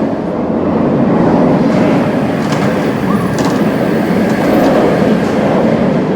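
Roller coaster train running on its track: a loud, steady rumble with a few faint clicks.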